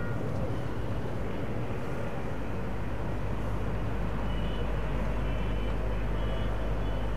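Steady low outdoor rumble, heaviest in the deep bass, with a few faint thin tones above it.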